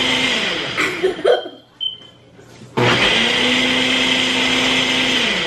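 Ninja Professional Plus blender motor running through its ice-crush Auto-IQ program. It winds down about half a second in, pauses for roughly two seconds with a couple of short knocks and a brief high tone, then starts again and runs steadily, winding down near the end.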